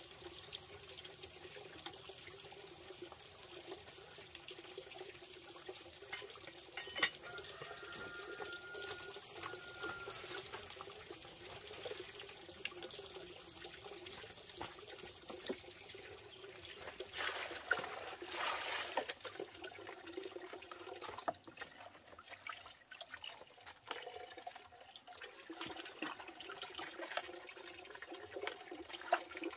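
Faint sounds of cooking at a wood-fired clay stove, with scattered clicks and knocks. Later, water runs from a pipe into a plastic basin and splashes as cabbage is washed.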